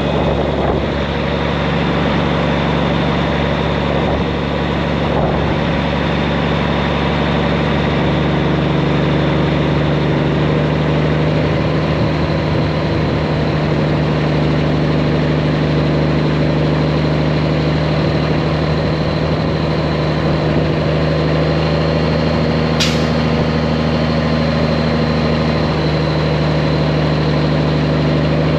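Heavy diesel engine running steadily at an even speed, with one short, sharp high-pitched sound about two-thirds of the way through.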